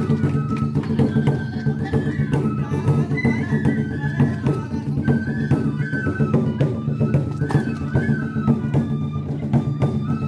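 Japanese shishimai lion-dance music: a transverse flute plays a short, repeating stepwise melody over continuous, rapid taiko drumming.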